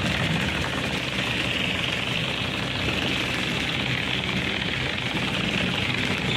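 Self-service car wash pressure washer running: a steady pump hum under the hiss of the spray.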